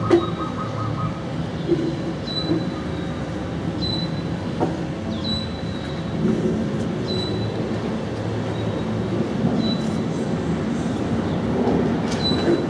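Boeing 737 twin-jet airliner climbing out overhead after takeoff, its engines giving a steady low rumble. A short high chirp repeats about every second and a half.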